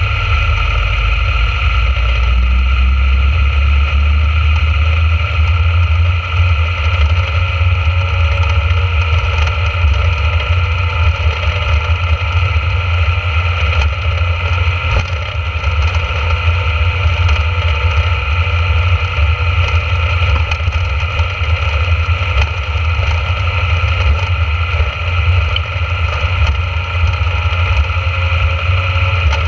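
Dragster engine running steadily at low speed while the car rolls along, heard from a camera mounted on the car. The sound stays loud and even, with no revving.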